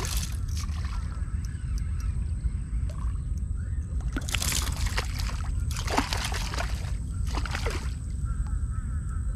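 Three loud bird calls, each falling in pitch, about a second and a half apart, over a steady low wind rumble. Near the end a spinning reel is being wound.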